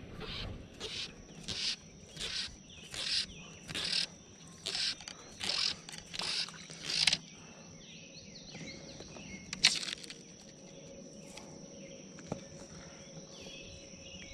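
Fly line being stripped in by hand, a rhythmic swish about every three-quarters of a second, about ten strips that stop halfway through; a single sharper pull of line follows a couple of seconds later. A steady high whine runs underneath.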